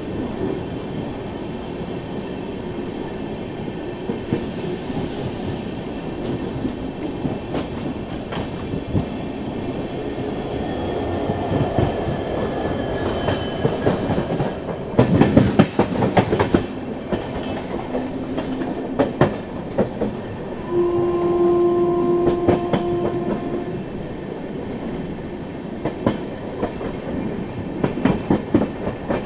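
Loknayak Express running, heard from the open coach door: a steady rumble with the wheels clacking over rail joints. About halfway through comes a louder rush of noise, and in the second half a train horn sounds once, held steady for about three seconds.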